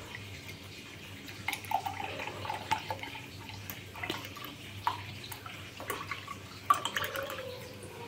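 Milk being poured in a steady stream from a steel vessel into a glass mug, splashing and trickling, with a few sharp clicks, the loudest near the end.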